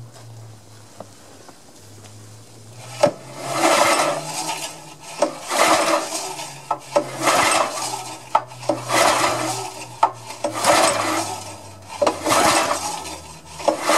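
Recoil pull-starter on a Honda 5.5 hp engine being yanked again and again, about six pulls roughly a second and a half apart starting a few seconds in. Each pull snaps the rope out and spins the engine over with a rattling whirr. The engine cranks but does not start and keep running.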